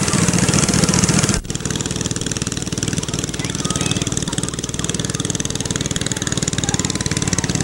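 A motor engine running steadily at a low idle, with a fast, even pulse. It drops off suddenly about a second and a half in and then carries on at a lower level.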